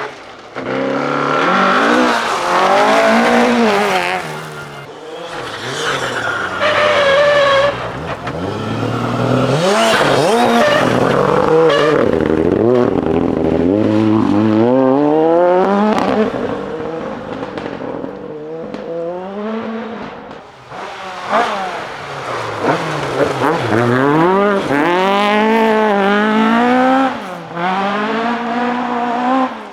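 Rally car engines at full throttle, their pitch climbing and dropping again and again through gear changes and lifts, with tyre noise on the loose stage surface.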